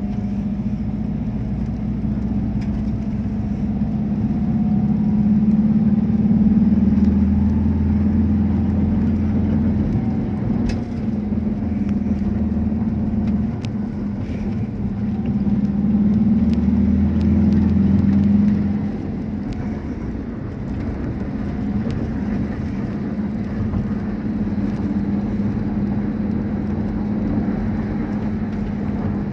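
Engine and tyre drone of a moving car heard from inside the cabin: a steady low hum that swells louder twice, around the first third and again past the middle, then eases back.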